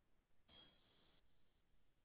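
Near silence, with one faint, brief high-pitched ding about half a second in that fades within a second.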